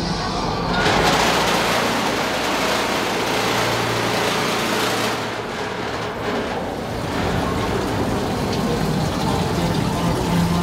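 Haunted attraction's industrial machinery soundscape: a loud, steady hiss over a low rumble, with a low hum rising for a second or two around the middle.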